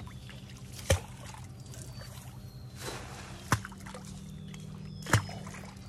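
Water trickling and sloshing around a small boat in a canal, over a steady low hum, broken by three sharp knocks about a second, three and a half seconds and five seconds in.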